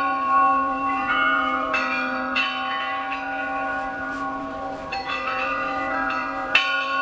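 Eerie bell ringing for a graveyard ambience: several bell strikes at uneven intervals, each one ringing on and overlapping the last, over a steady low tone.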